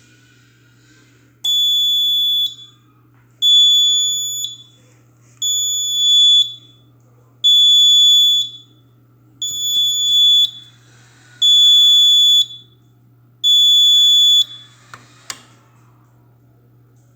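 Fire alarm sounder beeping: seven loud, steady, high-pitched beeps of about a second each, one every two seconds, then a single sharp click near the end.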